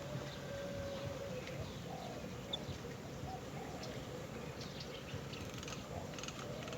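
Birds calling: scattered short high chirps and a thin held whistle over a steady low background noise.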